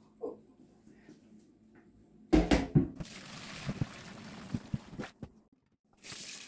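A metal pot knocks and clanks a few times about two seconds in, then liquid pours steadily into a sink for about two seconds, with another short rush of water near the end: the hot turmeric dye bath being drained out.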